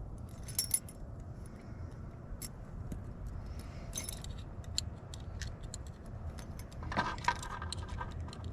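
Small metal lock parts clicking and clinking as they are handled and fitted together, a few light clinks with brief ringing, the clearest cluster near the end.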